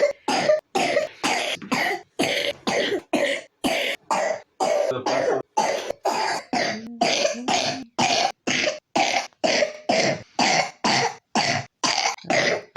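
A three-year-old child with pneumonia coughing in a rapid, unbroken run of short coughs, about two a second.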